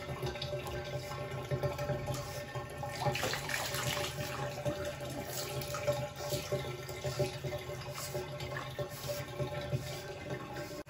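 Water poured from a mug over a pug puppy to rinse it, splashing in shallow bathtub water, over a steady low hum.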